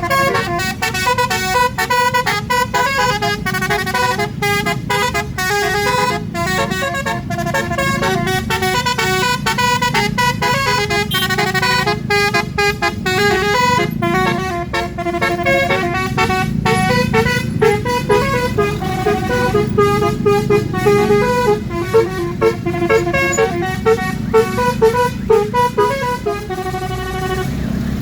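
Bus 'telolet' horn, a multi-tone basuri air horn, played as a fast tune of constantly changing notes over a low steady rumble.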